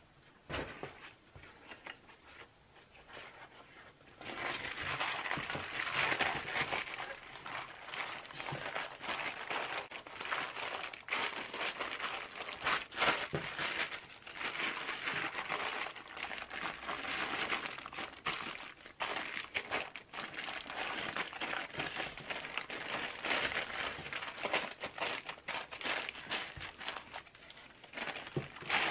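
Thin plastic sheeting crinkling and rustling as gloved hands fold it over a paper horn and press a layer of paper clay onto it through the plastic. It is faint for the first few seconds, then steady crinkling from about four seconds in.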